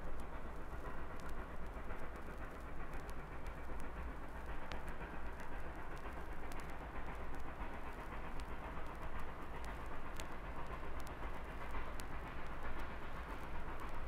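Train running on the rails behind a steam locomotive: a steady rumble with rail clatter. It is a field recording played back from a vinyl LP, with scattered surface clicks.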